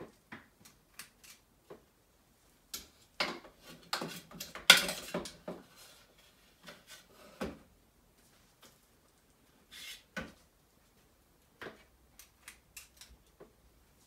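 Metal cookie scoop scraping and clicking against a bowl as a dough-like cauliflower mixture is scooped out and released. Scattered small clicks, with a louder run of scraping and knocks about three to five seconds in.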